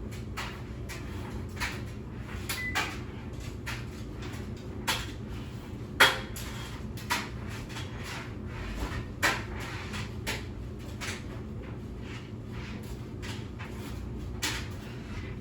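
A string of light knocks and clicks, like things being handled and set down, about a dozen of them, the loudest about six seconds in. A low steady hum runs underneath.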